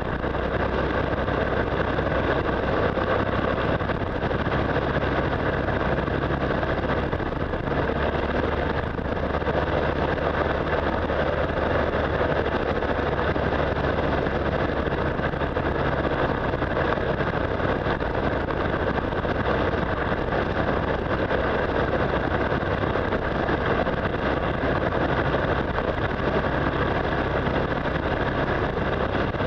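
Motorcycle engine running steadily at cruising speed, mixed with wind rush and road noise.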